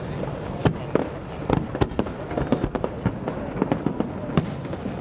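Aerial fireworks bursting in a rapid, irregular run of sharp cracks and bangs, several a second, over a continuous rumble of more distant explosions.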